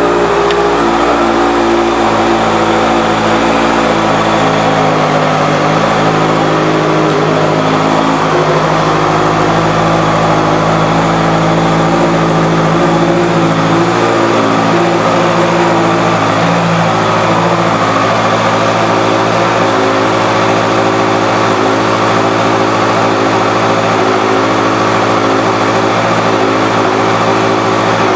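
2016 Honda CBR650F's inline-four engine idling steadily through a Two Brothers Racing aftermarket exhaust.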